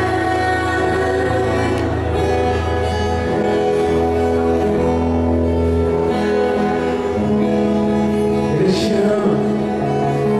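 Background music with slow, held chords that change every second or two.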